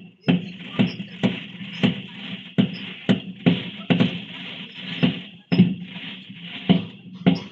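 Music with a steady beat: sharp percussive hits about two a second over a constant bright hiss.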